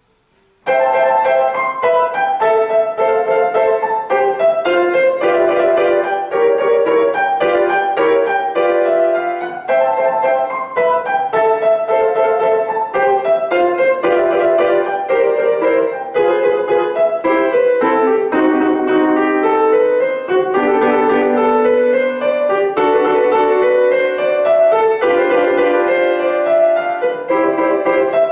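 Piano playing a classical piece, starting less than a second in after a silence and going on in a quick, unbroken stream of notes.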